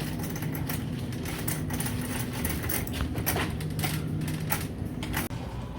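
Store ambience: a steady low hum with scattered light clicks and rattles.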